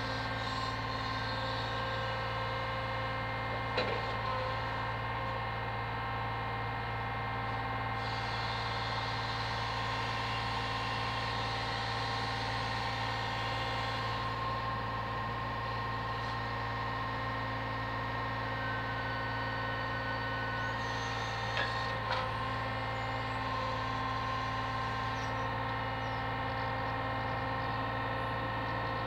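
Lorry engine running steadily to power its truck-mounted hydraulic loader crane, with a steady mechanical whine over the engine hum. A couple of brief clunks come through, one about four seconds in and another around twenty-two seconds in.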